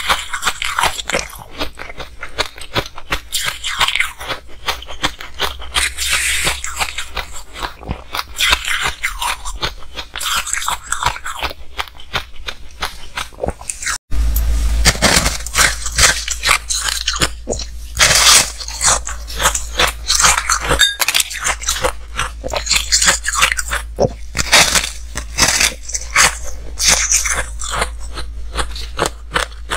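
Ice crunched and chewed in the mouth, close-miked: first mouthfuls of shaved ice, then, after a brief gap about halfway, louder bites and chewing of a solid frozen ice slab. The crunches come thick and irregular, several a second.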